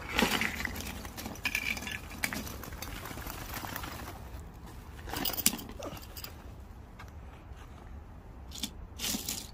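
Small scrap-metal finds (bottle caps, crushed can pieces, pull tabs) tipped out of a cloth finds pouch onto a table, clinking and rattling in a few separate bursts, with a last few clinks near the end as a hand stirs the pile.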